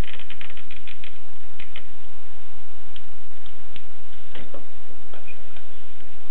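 Alpina manual typewriter keys striking: a quick run of keystrokes in the first second, then scattered single strikes, over a steady hiss.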